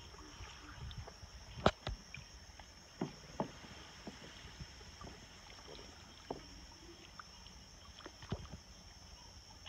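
Steady high-pitched insect chorus in a night marsh, with scattered short knocks and splashes from someone wading through shallow water and wet grass.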